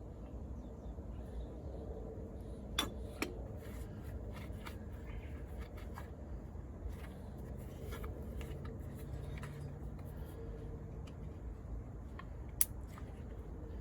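Light metallic clicks and clinks of tools and parts being handled, a few sharp ones standing out, over a low steady rumble.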